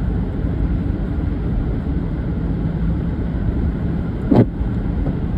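Steady low road and engine rumble heard from inside a moving car, its tyres running on a slushy, snow-covered road. A single short thump sounds a little past four seconds in.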